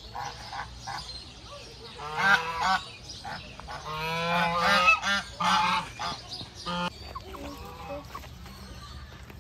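Geese honking in repeated calls: a short group about two seconds in, then a longer, louder run from about four to seven seconds in.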